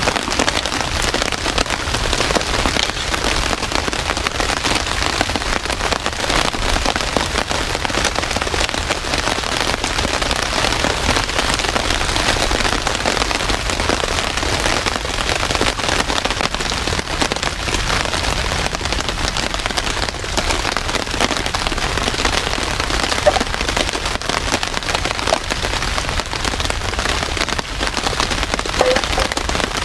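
Steady rain falling, with countless individual drops striking close by.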